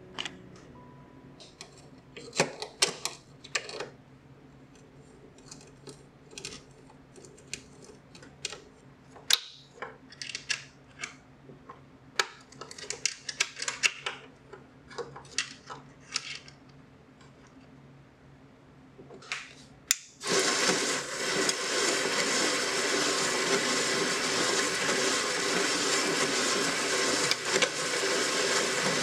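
3D-printed band saw: scattered clicks and knocks as its blade tensioner and wheel are handled and adjusted, then about two-thirds of the way through its motor switches on suddenly and the saw runs steadily.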